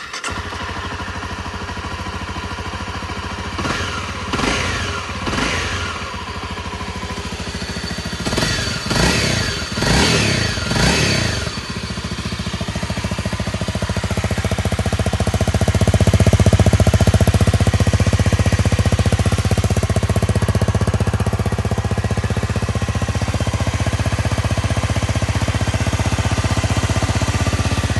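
Honda CRF250L's single-cylinder four-stroke engine running in neutral: two short revs, then a quicker run of revs, then a steady idle that grows louder about halfway through.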